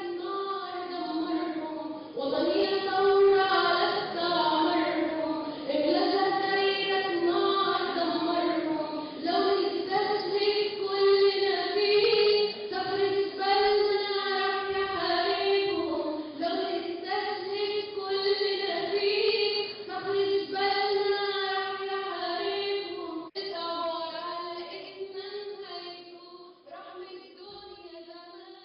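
A group of young voices singing a song together in chorus, growing quieter over the last few seconds.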